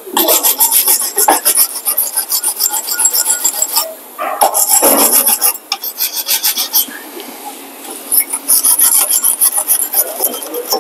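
Steel wire brush scrubbing a metal brake caliper bracket in quick back-and-forth strokes, a rasping scratch in several runs with short pauses between them, cleaning rust and dirt off the bracket before new pads go in.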